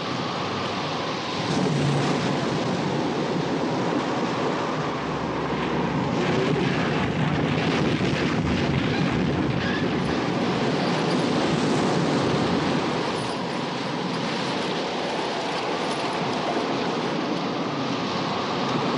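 Film soundtrack of a storm at sea: continuous wind and waves breaking over a boat's deck, getting louder about a second and a half in.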